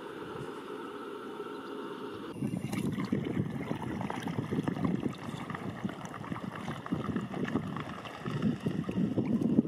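A flock of swans taking off from the river, wings beating and feet slapping on the water in an uneven, splashing rush that starts abruptly about two seconds in, after a steady low hum.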